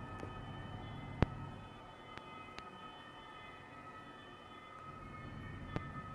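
A steady droning hum of several held tones over a low rumble, with a sharp click about a second in and fainter clicks later.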